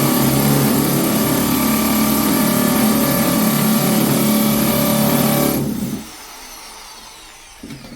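Electric hammer drill with a masonry bit running in hammer mode, drilling into a concrete block with a loud, steady hammering whir. About five and a half seconds in it is switched off and the motor winds down, its pitch falling.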